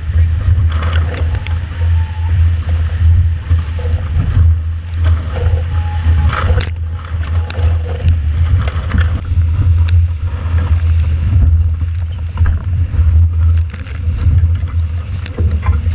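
Heavy wind buffeting on the microphone over the rush and spray of water past a fast-sailing F18 catamaran's hulls, with a sharp hit about six and a half seconds in.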